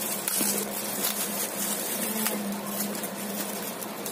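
Clear plastic wrapping crinkling and rustling as packs of plastic domino pieces are pulled open by hand, over a steady low hum.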